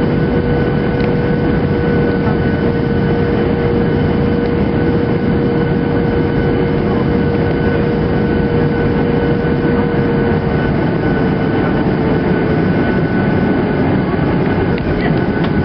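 Cabin noise of a Boeing 737-800 landing: its CFM56 jet engines running steadily with air rushing past and a steady whine, the whine fading about eleven seconds in as the aircraft comes down over the runway. A few knocks near the end.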